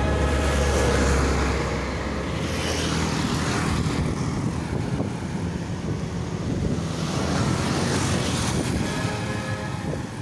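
Road vehicle driving along a road: a steady rush of engine, tyre and wind noise, heaviest in a low hum during the first few seconds.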